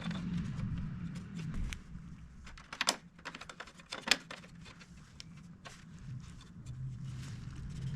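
Irregular clicks and taps of hard objects being handled, the sharpest about three and four seconds in, over a steady low hum.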